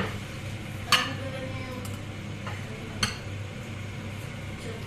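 Metal ladle and dishes clinking while porridge is served from a stainless steel pot into a ceramic bowl: three sharp clinks, the first right at the start, one about a second in and one about three seconds in, over a steady low hum.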